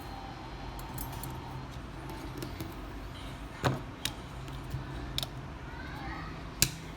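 A few sharp metallic clicks and taps of small tools or parts being handled, the loudest two about halfway and near the end, over a steady low hum.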